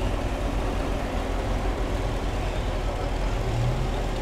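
An early-1960s Ford Thunderbird's V8 running at low speed as the car rolls past, a steady low engine drone. A stronger, deeper engine note comes in near the end.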